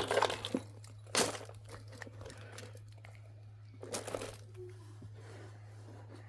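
Fidget toys and plastic packaging being handled and packed away: scattered crinkling rustles and light knocks, the loudest about a second in, over a steady low hum.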